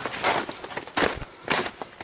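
Footsteps on snow-covered ground, three steps at a walking pace.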